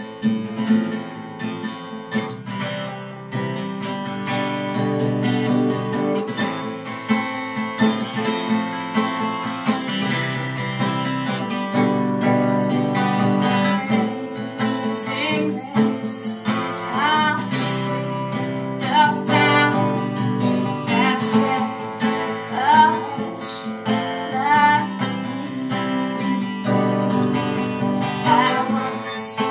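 Steel-string acoustic guitar strummed steadily as a song's introduction, with a woman's singing voice joining about halfway through.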